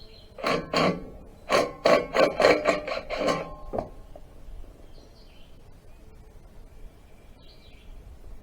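Hand tools knocking and scraping against metal engine parts: a quick run of about nine sharp strokes over some three seconds, then it stops.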